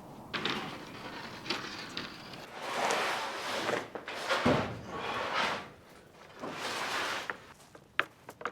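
A series of long scraping, sliding sounds, four in all, followed by several sharp clicks near the end.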